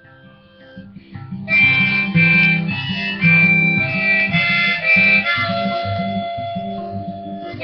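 Harmonica played in a neck holder over a strummed acoustic guitar, an instrumental break between verses. The guitar is quieter at first, and the harmonica comes in loud about a second and a half in with held notes.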